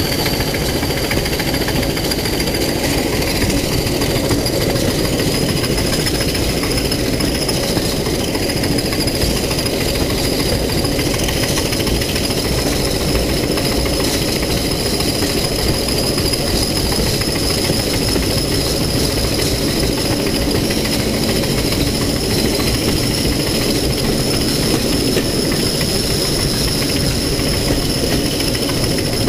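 Class 31 and Class 20 diesel locomotives working hard hauling a train, heard from aboard: a loud, steady mix of engine noise and running noise from the wheels on the rails. A high whistle rises slightly in pitch over the first few seconds and then holds.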